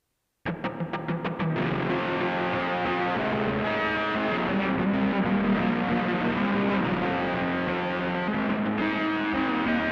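Instrumental rock music with distorted electric guitar: after a brief silence it opens with a rapid run of about six chord hits, then settles into a full, steady instrumental passage.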